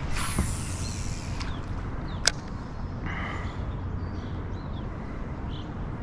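A fishing cast: line hissing off the reel for about a second and a half, then a single sharp click about two seconds in, over a low steady rumble.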